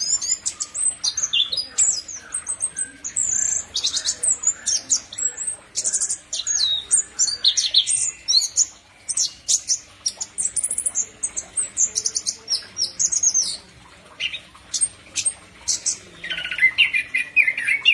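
Chestnut-capped thrush singing a long, varied song of rapid high whistles, quick trills and chattering notes. The song breaks off briefly about fourteen seconds in, then resumes with a lower, harsher chattering phrase near the end.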